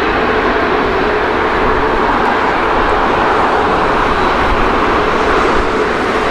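Jet engines of a Boeing 767-400ER airliner running steadily on the ground: a broad rush with a steady whine through it, swelling slightly midway.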